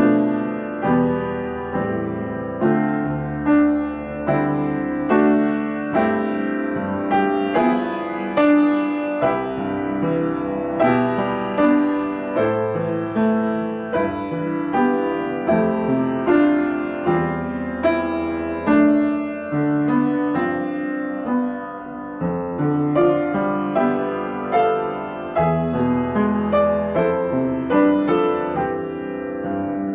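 Solo piano playing a slow piece, a new note or chord struck about once a second and left to ring.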